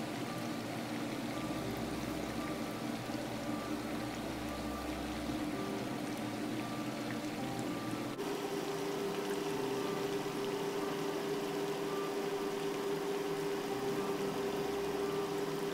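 Battered, cheese-stuffed zucchini flowers deep-frying in a pot of hot oil, with a steady sizzle and bubbling. A steady low hum joins about halfway through.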